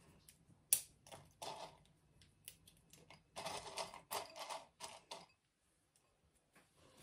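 Pieces of fine orchid bark mixed with old substrate being dropped and tipped into a glass bowl: light clicks and short rattling bursts, stopping about five and a half seconds in.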